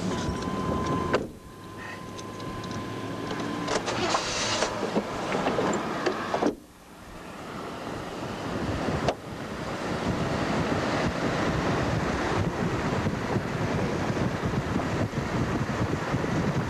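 Steady road and wind noise of a moving vehicle. The sound drops out abruptly three times, about a second in, around six seconds and around nine seconds, and swells back each time.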